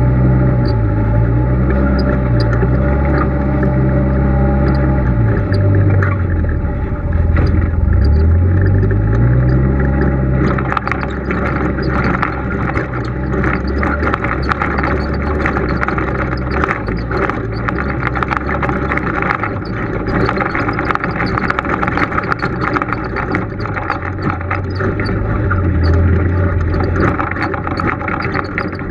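Polaris RZR side-by-side's engine running as it drives a dirt trail, its pitch rising and falling with the throttle. About ten seconds in it slows onto rocks and a steady clatter of knocks and rattles from the tyres and chassis sets in over the lower engine note, which picks up again briefly near the end.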